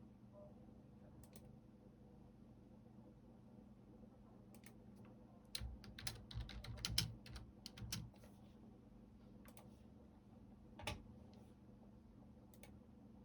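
Computer keyboard typing: a few scattered keystrokes, then a quick flurry of keys about halfway through, and one single louder key press a few seconds later.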